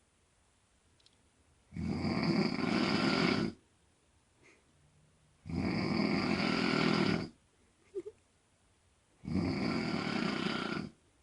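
A woman snoring loudly: three long, rattling snores about two seconds each, coming at an even pace with quiet pauses between breaths.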